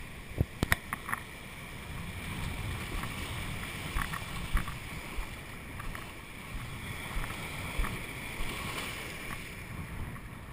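Wind buffeting an action camera's microphone over surf washing in the shallows. A few sharp knocks on the camera come within the first second or so, and two more about four seconds in.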